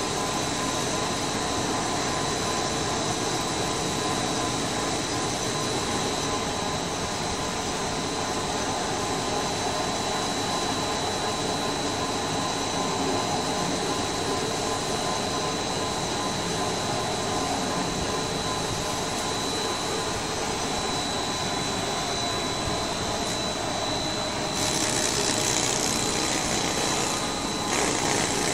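Quarry chain saw machine for marble running steadily as it cuts into the stone face: a continuous mechanical drone with a thin, steady high whine. It grows louder and hissier near the end.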